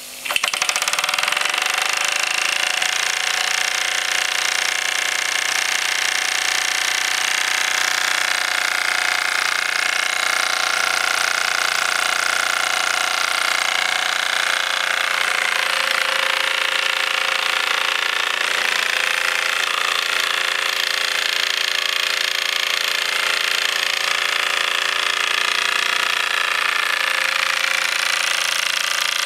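Mamod SE2 model steam engine, its small oscillating brass cylinder driving the flywheel. It starts the moment the flywheel is flicked by hand and then runs steadily at speed with a fast mechanical chuffing.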